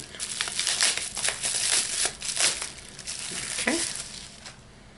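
Packaging crinkling and rustling as it is handled, with irregular sharp crackles; it dies down near the end.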